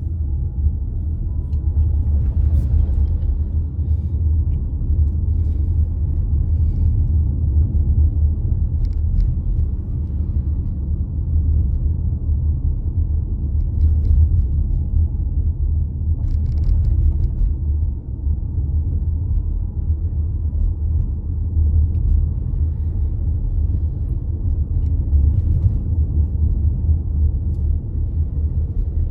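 Steady low rumble of a car being driven, heard from inside the cabin: engine and road noise, with a few faint brief clicks.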